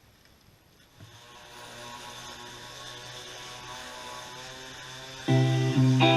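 Pressure washer motor starting about a second in and running steadily. Near the end, louder guitar music comes in over it.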